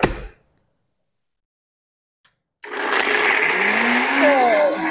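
NutriBullet personal blender switching on about halfway through and running loudly, its motor pitch rising and then settling as it spins up. It is blending raw cashews, water and salsa into a creamy dressing.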